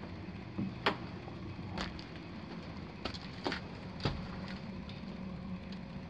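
Steady low hum of HVAC equipment running, with about five sharp clicks and knocks in the first four seconds from handling and moving over the attic decking.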